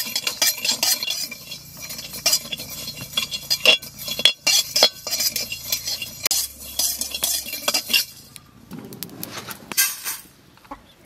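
A spatula scrapes and clinks against an aluminium kadai as whole coriander and cumin seeds are stirred and dry-roasted, the seeds rattling in the pan. About ten seconds in, the roasted seeds are tipped, rattling, into a steel bowl.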